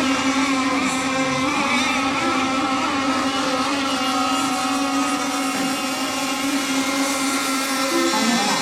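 Radio-controlled racing boats running on the lake, a steady buzzing motor drone holding one pitch with little change.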